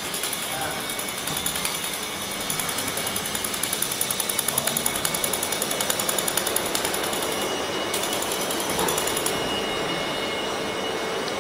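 Pulsed laser mold-repair welding machine firing on a metal workpiece: a rapid, even train of sharp snaps, strongest through the middle and fading after about seven seconds, over a steady machine hum.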